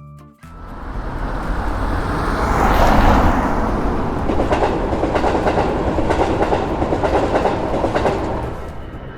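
Train passing: its noise swells to a peak about three seconds in, then its wheels clatter rapidly over the rail joints before it fades away near the end.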